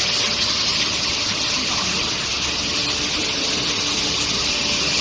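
Steady rushing hiss of water spray, typical of the quench on a steel bar induction quenching line, with a thin high whine held steady over it.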